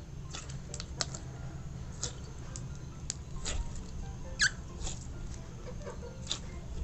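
Pink slime squeezed and kneaded in a hand, giving irregular sticky clicks and small pops, the loudest about four and a half seconds in.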